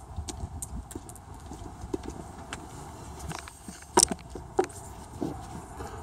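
Hard-soled boots stepping on wet asphalt, a regular clip-clop of about three steps a second. About two thirds of the way through come a few louder, sharper knocks.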